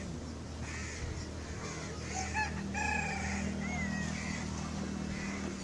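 A rooster crowing once, about three seconds in, among small birds chirping, over a low steady hum.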